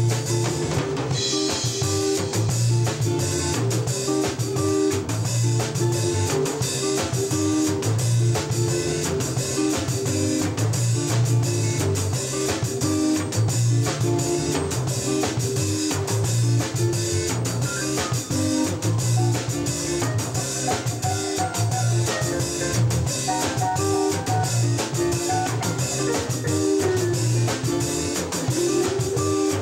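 Live band playing an instrumental passage: a drum kit with fast, continuous drum and cymbal strokes, guitars and a low bass line.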